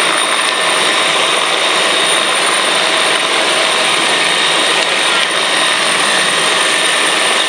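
Agusta-Bell AB 412 twin-turbine helicopter close up in a steady hover, one skid resting on the snow: a loud, even rush of turbine and rotor noise.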